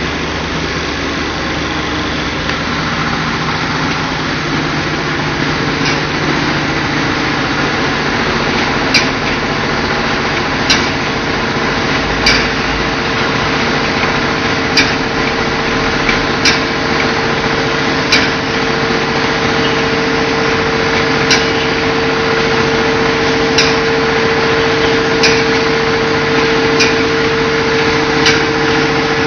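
Shrink sleeve labeling machine running in a factory: a steady mechanical hum with a high tone that grows stronger, and sharp clicks about every one and a half to two seconds from about a third of the way in.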